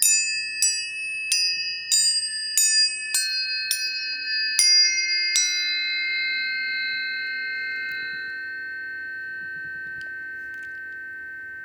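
Planetary tuning forks struck again and again, about nine sharp strikes in the first five seconds. Several clear steady tones ring on together and slowly fade.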